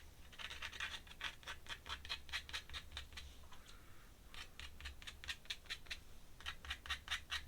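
Pen scratching on paper in quick hatching strokes, several a second, in three runs with short pauses between.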